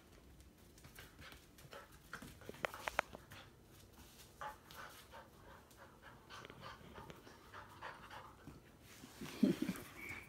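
A ten-week-old puppy panting during play, with scattered light clicks and knocks, the sharpest a few seconds in and a louder low knock near the end.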